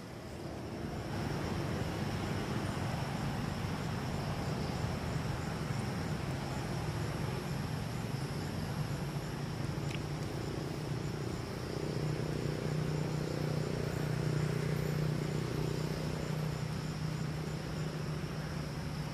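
Steady high insect chirring with faint regular ticking, over a low drone that grows stronger about two-thirds of the way through.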